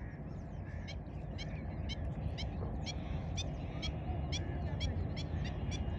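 Birds chirping: short high calls repeated about two or three times a second, over a low steady rumble.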